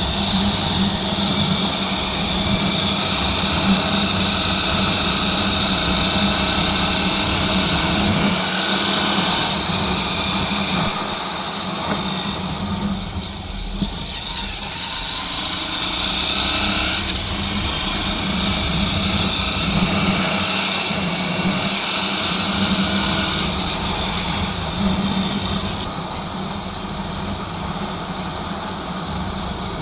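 Honda XR 250 Tornado's single-cylinder four-stroke engine running steadily under way on the road, with a steady rush of wind and road noise over it; the engine eases off briefly about halfway through and again near the end.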